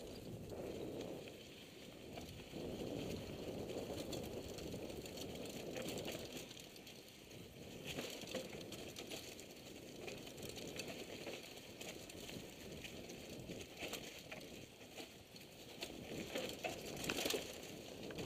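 Mountain bike rolling down a dirt trail covered in dry leaves: a steady rush of tyre and ride noise with constant light rattling and clicking, growing louder and busier over rocks near the end.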